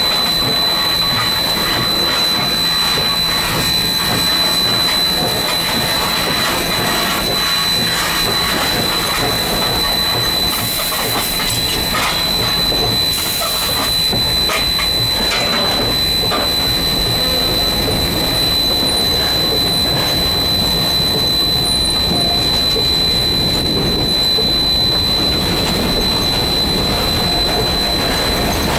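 Steam locomotive 3025, a 2-8-2, under way, heard from its cab: steady running noise of the engine and wheels on the track with rail clicks and steam hiss, over a constant high-pitched whine. Brief louder bursts of hiss come about eleven and thirteen seconds in.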